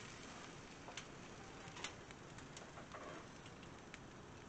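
Faint, sparse light clicks of a utensil against a gas grill's metal grate as fish fillets are laid on it, over a low steady hiss.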